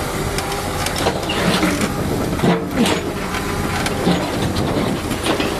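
Wheeled hydraulic excavator's diesel engine running steadily, with scattered metallic clanks and knocks from the machine and short creaking squeals around the middle.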